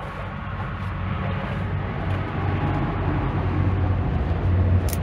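A motor vehicle's engine rumbling low and steady, growing gradually louder.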